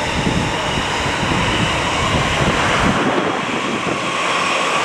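Electric trains passing on the multi-track line below, a steady rushing rumble of wheels and motion. About three seconds in, the low rumble drops away and a lighter rushing noise carries on.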